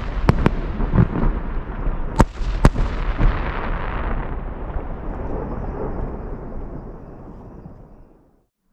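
Aerial firework shells bursting overhead: four sharp bangs in the first three seconds, followed by a long rolling echo that slowly fades, then the sound cuts off suddenly near the end.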